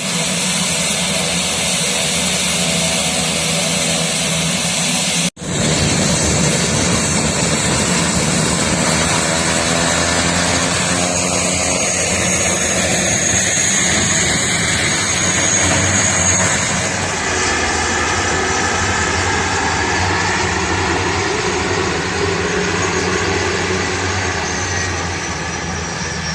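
Turboprop aircraft engines running loudly and steadily, with slowly gliding tones through the middle and later part. The sound cuts out for an instant about five seconds in.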